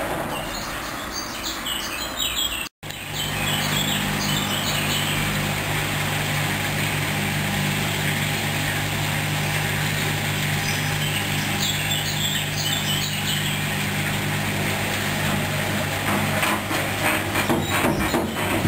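Hoover washing machine running a duvet wash: a steady motor hum that starts just after a brief cut a few seconds in and eases off near the end, with faint high chirps over it.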